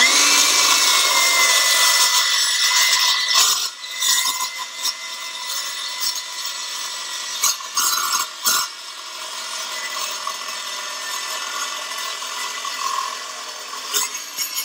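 Milwaukee M18 Fuel 2982-20 cordless metal-cutting circular saw with an 8-inch carbide blade, spinning up and cutting through 1/4-inch-wall 2x3 rectangular steel tube. Its high whine rises as it starts, then holds steady under the rasp of the blade in the steel. It is loudest for the first few seconds and eases after, with a few sharp knocks around the middle.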